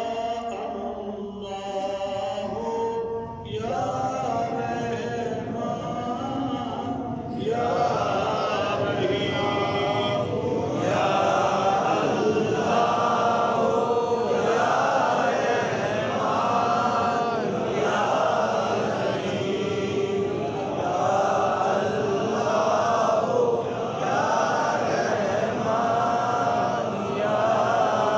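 Devotional chanting by a group of men's voices, growing fuller and louder about seven seconds in, then settling into one short phrase repeated about every second and a half.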